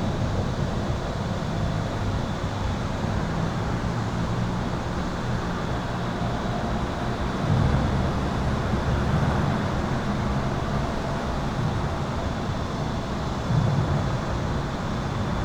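Highway traffic heard from beneath an overpass: a steady rush of tyres and engines, with louder low swells as vehicles pass about seven and thirteen seconds in. A steady electrical hum runs underneath.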